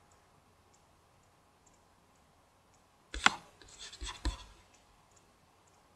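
Two sharp computer mouse clicks about a second apart, a little past the middle, with faint rustling of desk handling between them; faint room tone before them.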